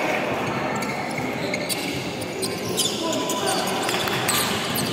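Basketball game on a court: a ball bouncing in a few sharp knocks over a steady background of distant voices.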